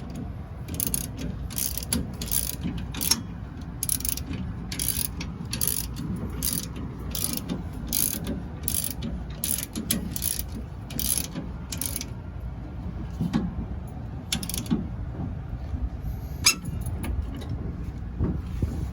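Hand ratchet wrench being worked in steady strokes, a short burst of clicking a little more often than once a second, while tightening suspension mounting hardware; the strokes stop about twelve seconds in, with two more later, over a low rumble.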